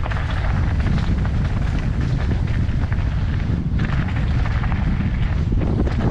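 Wind buffeting the microphone as a mountain bike descends a rocky dirt trail at speed, with the tyres crunching over gravel and quick clicks and rattles as the bike chatters over stones.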